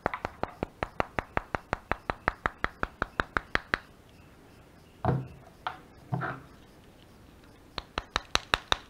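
Rapid knuckle rapping on the plastic side scale of a Victorinox Swiss Army knife, about six or seven sharp knocks a second, used to test whether the scale sits tight on its rivets or has play. A loose scale gives off a different noise. The rapping stops for a few seconds, with two louder, duller thuds as knives are handled, then starts again near the end.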